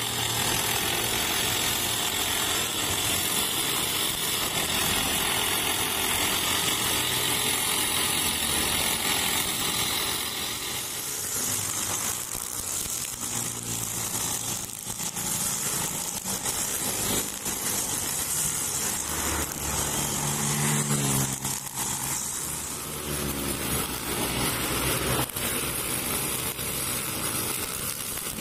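Honda GX35-powered backpack brush cutter running at working speed, its nylon string line cutting grass, with a steady high whine that changes character about ten seconds in, plus scattered ticks of debris hitting the line. Motorbikes pass on the road now and then, their engines rising and falling.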